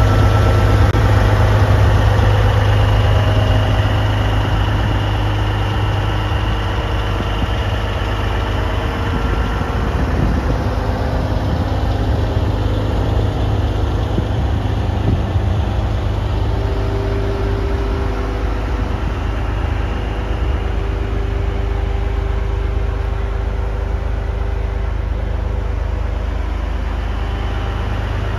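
Cat 6NZ (C15) inline-six diesel engine of a Western Star 4900SB truck idling steadily.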